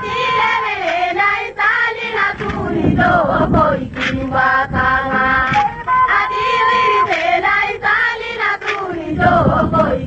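Music with voices chanting and singing over a steady beat.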